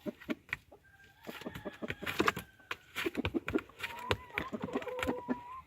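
Chickens clucking: many short clucks, with two longer drawn-out calls, the second held for over a second in the latter half.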